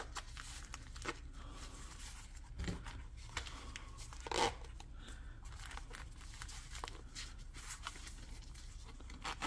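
Rustling and scattered light clicks and knocks as small items are handled and packed into a pouch, with one more distinct knock a little after the midpoint.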